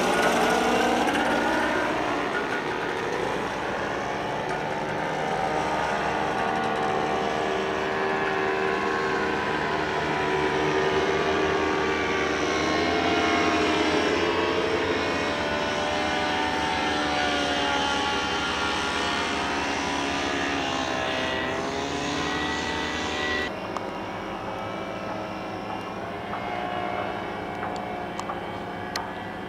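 Powered paragliders' paramotors buzzing overhead, the engine-and-propeller note sliding down and back up in pitch as they pass and change throttle. The sound changes abruptly near the end.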